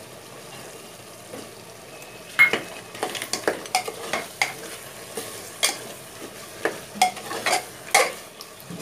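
A steel spoon stirring thick mutton curry in an aluminium pressure cooker, over a low sizzle of the masala frying. From about two seconds in, the spoon scrapes and clinks against the side of the pot again and again, irregularly.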